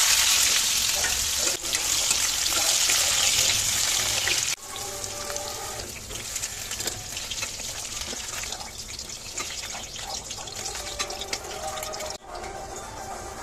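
Water running hard from a kitchen tap, cutting off abruptly about four and a half seconds in, then quieter splashing and sloshing.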